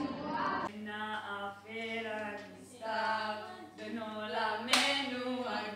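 Young women's voices singing unaccompanied in slow, held notes, starting just under a second in. A single sharp click or knock cuts through the singing about three-quarters of the way in.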